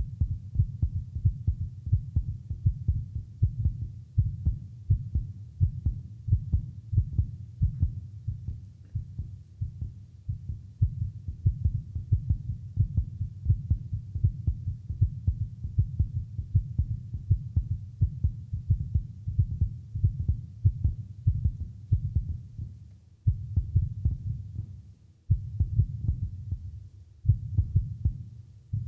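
Low, throbbing pulses like a heartbeat, several a second, part of a live contemporary vocal-ensemble piece; the pulsing drops out briefly twice near the end.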